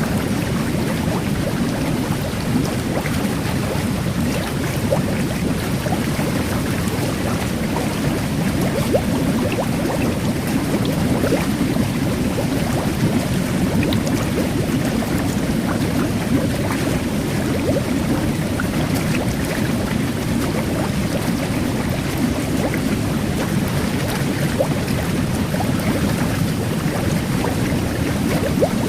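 Jet bath (whirlpool tub) churning water in a steady rush, layered with the fizz of fine carbonated-water bubbles: many tiny scattered pops over a low, even rumble.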